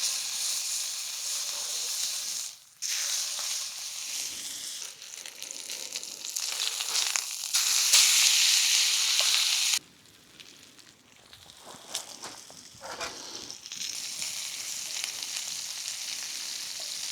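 Food sizzling and frying in a hot pan, a dense hiss that stops and starts abruptly a few times, with a quieter stretch and a few light ticks near the middle.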